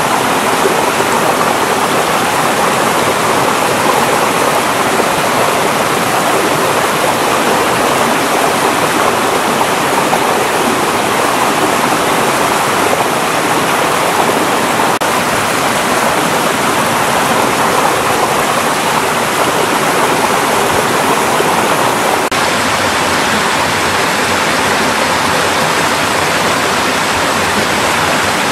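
Mountain valley stream flowing steadily over rocks, a loud, even rush of water whose tone shifts slightly about three-quarters of the way through.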